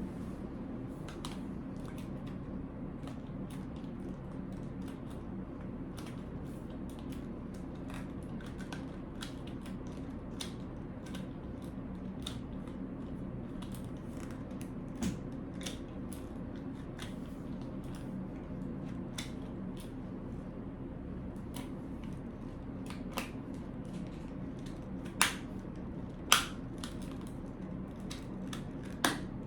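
Scattered clicks and snaps of a kids' stroller and its packaging being handled, with a few louder snaps in the second half, over a steady low hum.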